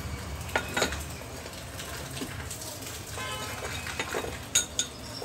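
Pieces of steel bar clinking and knocking as they are handled and set down by the angle grinder stand, with the grinder switched off. A few sharp metallic knocks, the loudest about four and a half seconds in.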